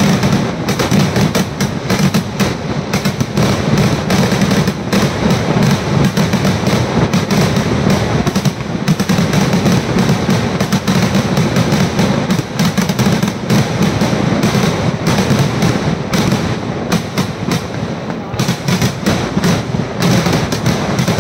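Kerala temple-festival fireworks (vedikkettu): firecrackers and aerial shells going off in a loud, unbroken barrage of many bangs a second.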